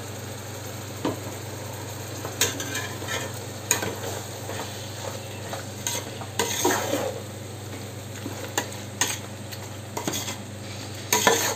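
Prawns sautéing in masala in a metal pot, a steady sizzle, while a perforated metal ladle stirs them, scraping and knocking against the pot every second or so, loudest near the end.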